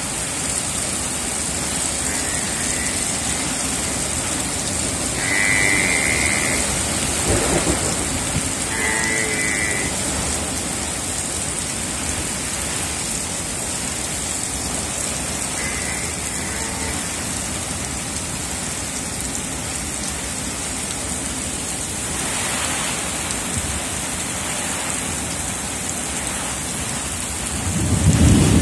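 Heavy rain pouring steadily onto a waterlogged field, with a low rumble of thunder building near the end.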